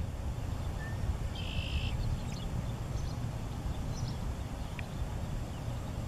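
Outdoor ambience: a steady low rumble with faint, scattered bird chirps and one short buzzy call about a second and a half in.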